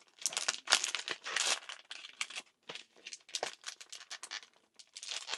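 Retail knife packaging crinkling and crackling in a run of irregular bursts as it is handled and worked open.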